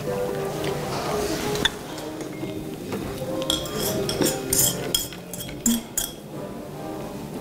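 Chopsticks and utensils clinking against ceramic plates and dishes during a meal, with a run of sharp clinks about halfway through, over background music.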